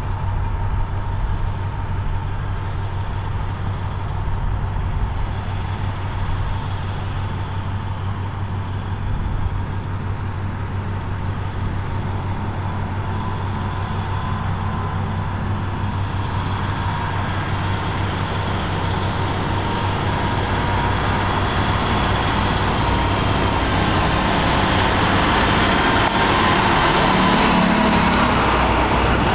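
British Army MAN SV military trucks' diesel engines running steadily as a convoy drives along a gravel track. The sound grows louder over the last few seconds as a truck comes close, with more tyre and road noise.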